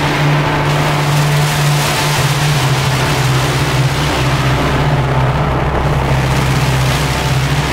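A dense, harsh wall of noise from an experimental noise/drone track, over a low droning bass note that steps down in pitch about two seconds in.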